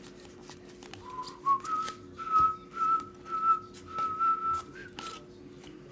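A person whistling one long, nearly level note that starts about a second in, steps up twice in pitch and stops about five seconds in, over short clicks and slaps of trading cards being shuffled and sorted by hand.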